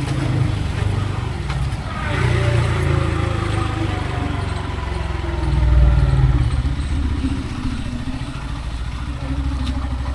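Motorcycle engine running on the move amid road traffic, a low pulsing rumble that swells about six seconds in.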